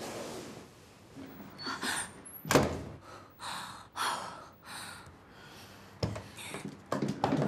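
A wooden door shuts with one sharp thud about two and a half seconds in, followed by a woman's audible breathing and a smaller click near the end.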